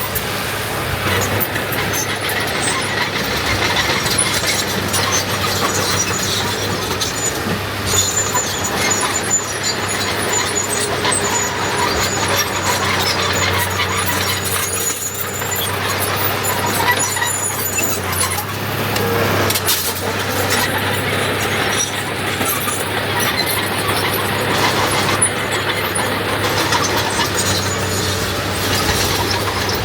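Diesel engines of dump trucks and a small crawler bulldozer working, a steady heavy machinery din with clanking and a thin high squeal in the middle.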